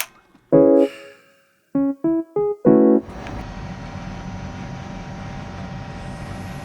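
Short piano or keyboard music: a chord, then a quick run of short rising notes ending on a second chord, followed by a held, hazy sustained sound.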